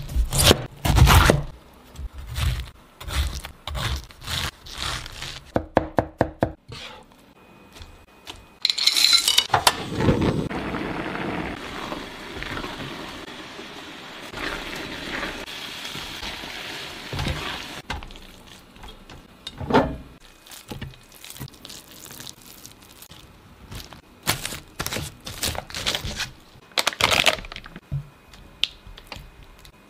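Kitchen work sounds: a run of sharp knocks as a cleaver chops through a pineapple on a wooden cutting board, then a longer stretch of stirring and scraping in a pan of cooking pineapple, and near the end a spatula knocking and scraping in a glass bowl.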